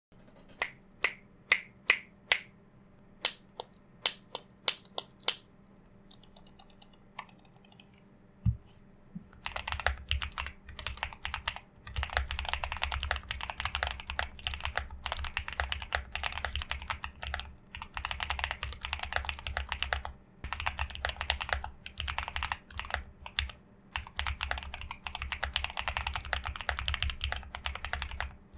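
Custom mechanical keyboard with pre-lubed Gateron Oil King linear switches in an aluminum case being typed on. It starts with about a dozen separate key presses, then a single low thump from a larger key about eight seconds in, then continuous fast typing.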